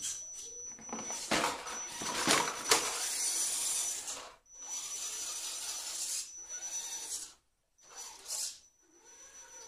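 Axial SCX10 Honcho RC rock crawler's electric motor and geartrain whining in runs of throttle as it crawls. Sharp knocks of its tyres and chassis against the hard plastic boxes come about a second and a half to three seconds in. There is a short stop, then a brief burst of throttle near the end.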